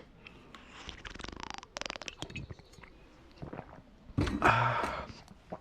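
A person slurping a sip of hot coffee about a second in, then letting out a breathy sigh of relief near the end.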